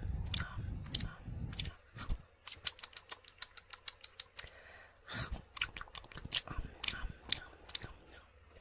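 Tongue clicks and dry mouth sounds made right at a microphone: a fast run of clicks about two and a half seconds in, then slower, scattered clicks. A low rumble sits on the microphone in the first couple of seconds.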